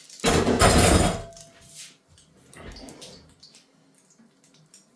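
Cookware clattering at the frying pan: one loud clatter lasting about a second with a brief metallic ring after it, then a fainter knock-and-rustle a couple of seconds later.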